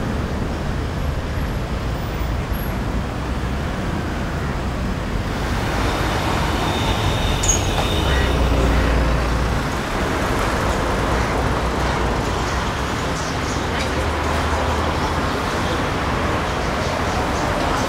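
Road traffic noise: a steady rumble of passing vehicles, louder in the middle.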